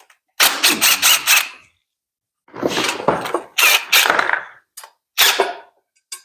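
Tool work on the exhaust side of a Chevy 5.3 LS V8 being torn down: about five short, noisy bursts, each under a second, with a couple of sharp clicks between them.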